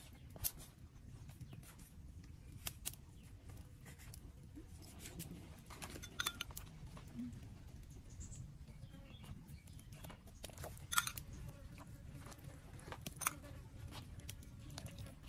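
Faint handling sounds of preparing a raw whole chicken: a small knife cutting through the flesh, then a metal spoon spreading chili marinade over it, heard as scattered light clicks and taps over a low background noise.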